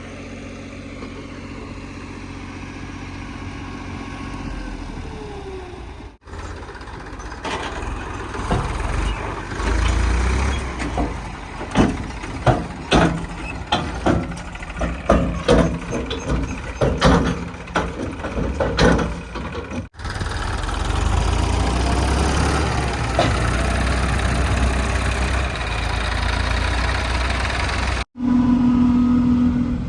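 Heavy diesel machinery running in a series of short clips. An engine idles steadily, then a stretch of repeated clanks and knocks, then a steady engine running again.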